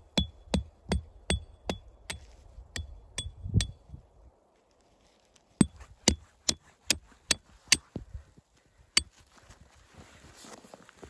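Hammer blows on metal, about two to three a second, each with a short high ring. They come in two runs with a pause of about two seconds between them.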